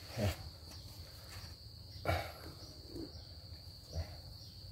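A cricket trilling steadily in the background, with three short knocks and bumps about two seconds apart from the camera being handled and repositioned.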